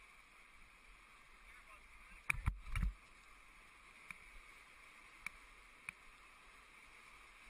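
Faint steady rush of whitewater rapids, with a cluster of dull thumps and knocks about two and a half seconds in and a few sharp clicks later.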